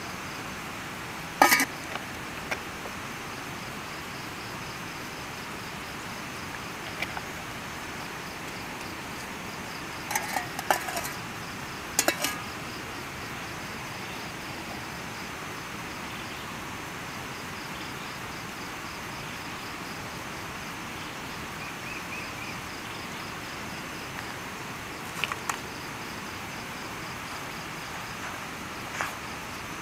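A spork and a steel cup knocking and clinking against a small nonstick camping pan while flour and water are stirred into bannock dough. The clinks are sharp and come at irregular intervals: the loudest about a second and a half in, a quick cluster around ten seconds, then a few fainter ones.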